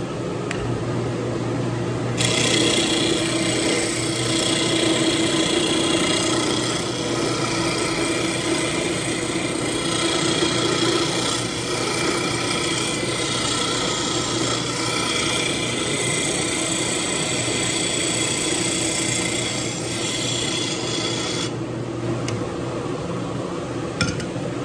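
Wood lathe spinning a bocote duck-call blank while a square-ended turning tool cuts it round: a steady scraping hiss of steel on wood that sets in about two seconds in and eases off near the end, over a steady motor hum.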